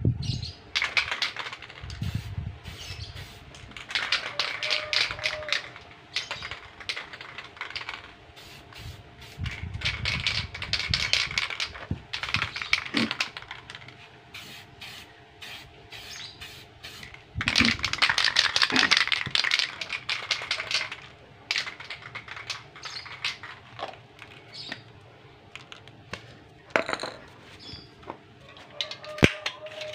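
Aerosol spray-paint can spraying in about five bursts of two to three seconds each, with a rapid crackly texture and quieter pauses between bursts.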